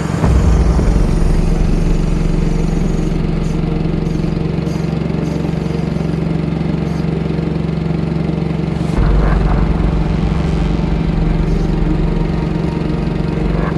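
Boat engine running steadily, its low rumble stepping up just after the start and again about nine seconds in.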